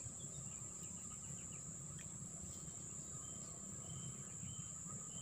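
A steady high-pitched insect drone over the low rush of a fast-flowing flooded river, with a few short chirps here and there.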